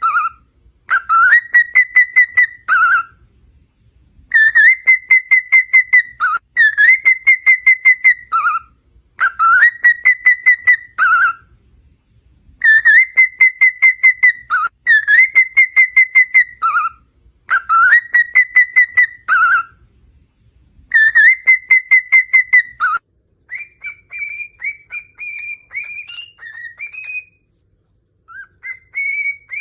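Cockatiel whistling its song: the same phrase about eight times over, with short pauses between. Each phrase is a rising note, then a fast trill held at one pitch, then a lower closing note. Near the end it gives way to softer, shorter, rising chirping whistles.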